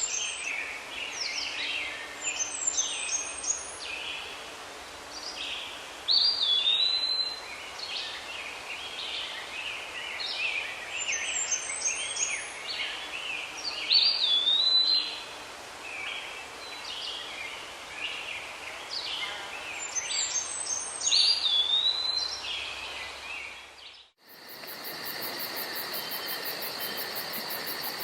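Birds singing and chirping, with a loud song phrase of quick chirps and a whistled sweep returning about every eight seconds. About 24 seconds in this cuts off and gives way to a steady chorus of crickets with a fast, even high trill.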